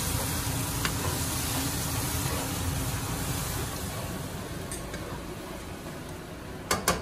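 Tomatoes and spices frying in oil in a cooking pot as they are stirred, a steady sizzle that slowly dies down. Two sharp knocks close together near the end.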